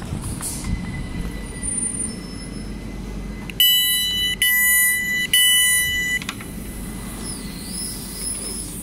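Train door-opening alert after the passenger door-open button is pressed: three loud electronic beeps, each just under a second long, two tones sounding together. The stationary electric train hums low underneath.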